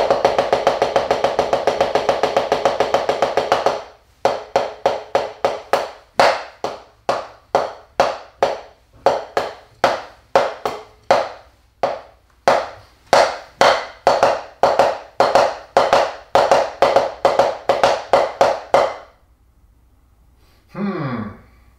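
Wooden taiko bachi striking a drum practice pad as a solo is played through. It opens with a fast, even roll of about four seconds, then moves into single strokes and short quick groups in a varied rhythm, and stops a few seconds before the end.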